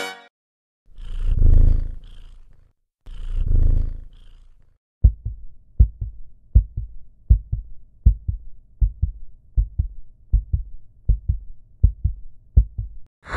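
Cat purring in two long, low rumbles, one per breath, followed by a steady heartbeat: paired lub-dub thumps a little under a second apart, continuing to near the end.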